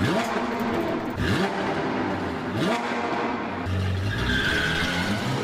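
Car engine revving in three rising sweeps with whooshes, then a low rumble and a sustained high squeal near the end, like a tire squeal.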